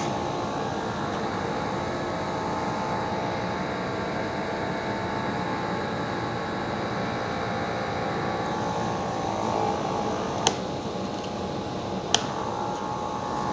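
Battery-driven DC motor spinning a synchronous motor in a cardboard housing, the pair running as a small AC generator with a steady whirring hum while lighting a bulb. Two sharp clicks come near the end.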